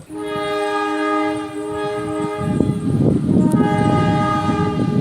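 Locomotive horn sounded by the driver as a played pattern: a held multi-tone chord that shifts pitch a couple of times. A low rumble from the train joins about halfway through.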